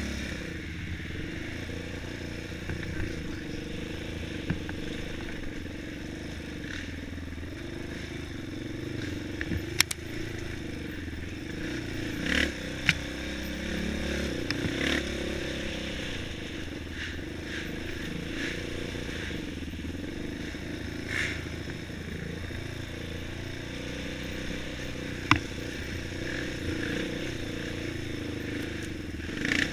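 Quad (ATV) engine running steadily while riding a rough trail, with several sharp knocks and clatter scattered through it.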